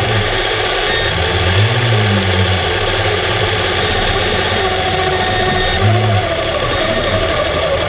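Steady underwater roar and hiss picked up by a camera submerged in a diving pool, with a few brief low hums that rise and fall, about a second and a half in and near six seconds.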